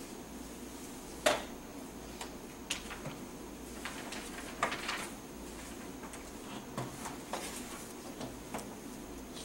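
Quiet room tone with a steady hum, broken by scattered small knocks, taps and rustles of people writing and handling papers at tables; the sharpest knock comes about a second in.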